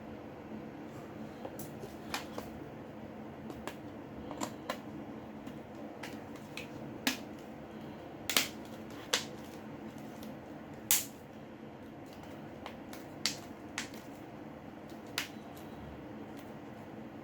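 Irregular small clicks and taps of tools and plastic parts being handled on an opened smartphone during repair, about a dozen sharp ones, the loudest about eight and eleven seconds in, over a steady low hum.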